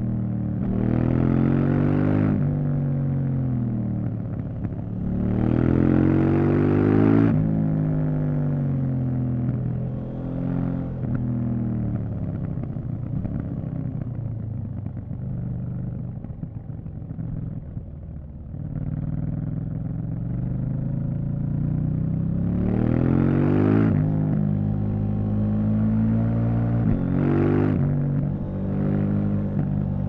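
KTM 790 Duke's parallel-twin engine under hard riding, revs sweeping up sharply about a second in, around six seconds in and twice near the end, falling away as the throttle closes between them. In the middle it drops to a quieter, low-revving stretch as the bike slows.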